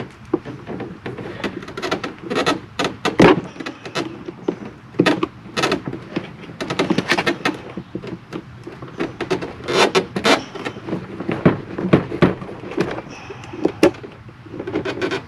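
Irregular plastic clicks, knocks and scraping as an interior door handle assembly is pried at and worked loose by hand. The loudest knock comes about three seconds in.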